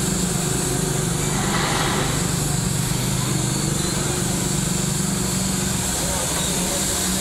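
Compressed-air paint spray gun hissing steadily as it sprays paint, over the steady motor hum of the air compressor feeding it.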